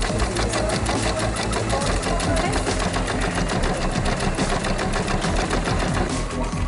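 Janome electric sewing machine stitching at a steady speed, its needle strokes making a rapid, even ticking.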